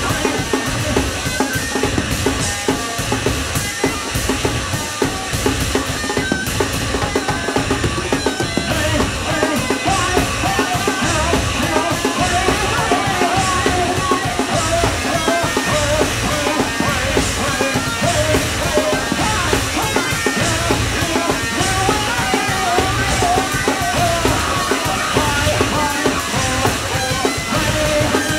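Live noise rock from a drums-and-bass duo: a drum kit played hard with steady kick drum pulses under a dense, distorted bass guitar. Loud and continuous, with no break.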